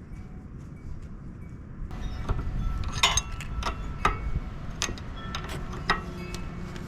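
A run of sharp metallic clinks and taps, several in a row about half a second to a second apart, starting about two seconds in, over a low rumble.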